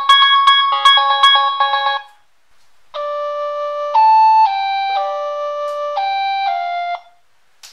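Android Jelly Bean ringtones played as Nokia 3220 polyphonic MIDI ringtones. A quick, repeating melody of short notes ends about two seconds in. After a brief pause, a slower melody of held notes plays for about four seconds.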